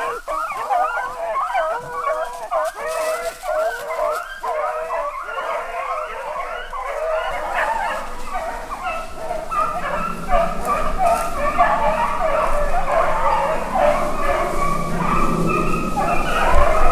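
A pack of beagles baying and yelping in full cry, many voices overlapping as they run a freshly jumped swamp rabbit.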